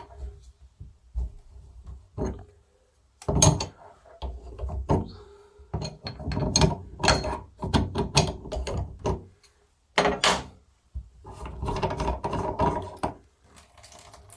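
A 17 mm ring spanner working on a ceramic tap cartridge as it is loosened and unscrewed from a bath mixer tap: clusters of metal clicks and knocks, separated by short pauses.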